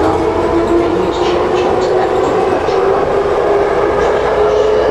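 Warsaw Metro train heard from inside the car as it pulls away into the tunnel: the traction motors whine with a pitch that rises slightly as it gathers speed, over the steady rumble of wheels on rail.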